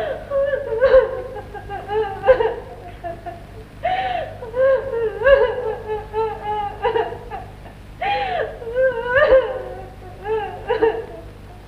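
A woman crying aloud in high, wavering wails broken by short pauses, an exaggerated, put-on cry.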